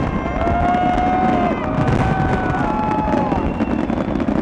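Several horns sounding long held notes at different pitches, overlapping, each dropping in pitch as it stops, over the rumble and crackle of the last fireworks.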